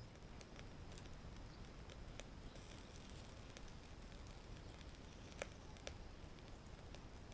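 Capelin grilling on a wire net over charcoal in a shichirin: faint, scattered crackling and popping, with two sharper clicks a little past the middle.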